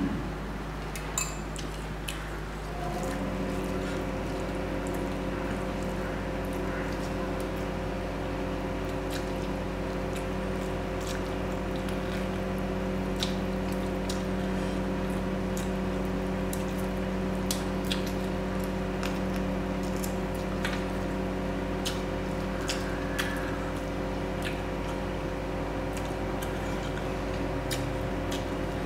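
Close-miked eating sounds from mutton curry and rice: wet, squishy chewing with sharp mouth clicks and smacks scattered throughout. Underneath runs a steady hum of several fixed tones.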